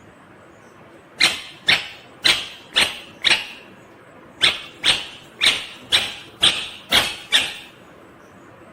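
Ringneck parakeet giving sharp, harsh calls, about two a second: five in a row about a second in, a short pause, then about seven more.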